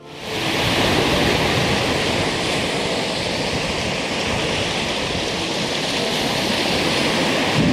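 Rough Lake Superior surf breaking on a pebble shore: a steady, loud rush of waves.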